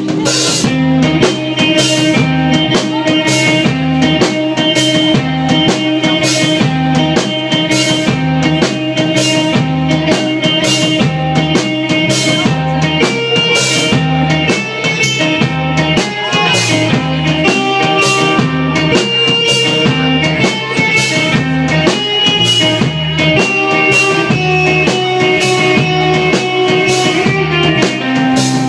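Live rock band playing: a drum kit keeps a steady beat with regular cymbal hits under sustained guitar notes.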